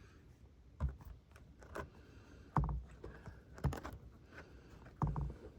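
A few short, dull knocks and thumps about a second apart, from handling gear by hand; no engine is running.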